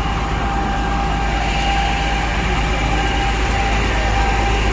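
A large engine running steadily: a loud rumble and hiss with a steady high whine over it.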